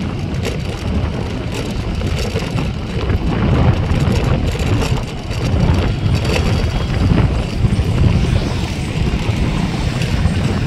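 Wind buffeting the microphone of a moving two-wheeler, with its engine and road noise running underneath.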